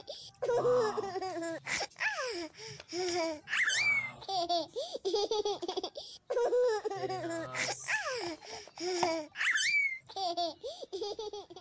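A small child laughing and babbling in a high voice, a short stretch of about six seconds heard twice in a row.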